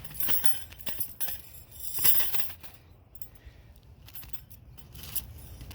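Metal ground-cloth stakes clinking and jangling against each other as they are handled and set down, with a loud rattling spell about two seconds in and scattered clicks.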